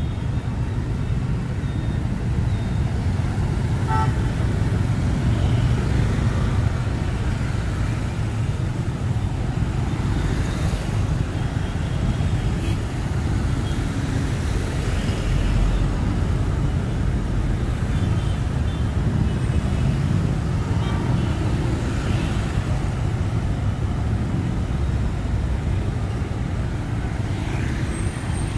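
City street traffic: a steady rumble of passing vehicles, with a short horn toot now and then.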